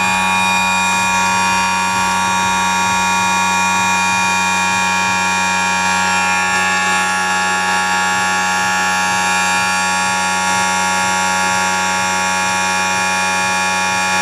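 Brushless motor on a dyno bench, driven by a Kontronik Kosmik 200 ESC at 50% throttle and about 48 amps, running under steady load. It gives a steady whine of many tones at once; the ESC's PWM chops the phase voltage at partial throttle.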